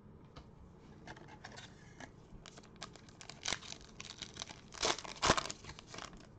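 Foil wrapper of a Panini Prizm basketball card pack crinkling and being torn open by hand. The loudest rips come about three and a half seconds in and again near five seconds.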